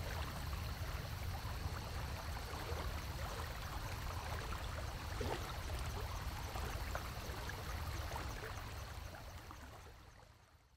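Steady rushing noise with a strong low rumble and faint scattered clicks, fading out over the last two seconds.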